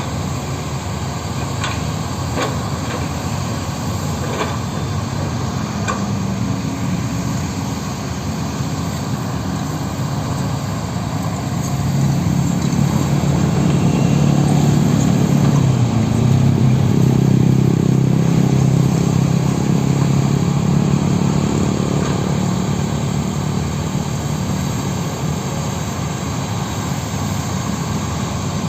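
Heavy diesel earthmoving machinery running at a land-clearing site: a steady low engine drone that swells about twelve seconds in and eases off again after about twenty seconds. A few sharp knocks come in the first several seconds.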